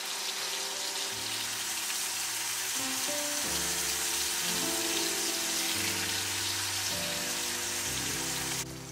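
Steaks sizzling as they are laid into a hot cast-iron skillet on an induction cooktop, a steady hiss that cuts off suddenly near the end. Background music with long held notes plays underneath.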